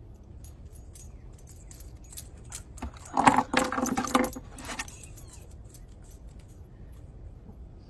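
Small metal pieces jingling and rattling: a string of clicks for about four seconds, loudest a little past three seconds in.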